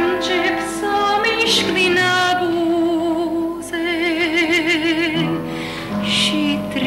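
A woman singing with a wide vibrato, holding long notes, over instrumental accompaniment.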